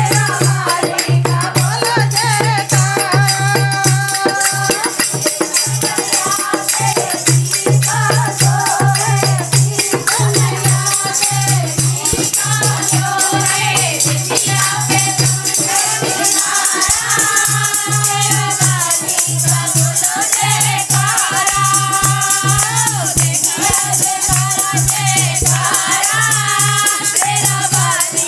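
Women singing a Hindi devotional bhajan to the goddess Sherawali together, with hand clapping and a shaken rattle keeping a fast jingling beat over a low repeating pulse.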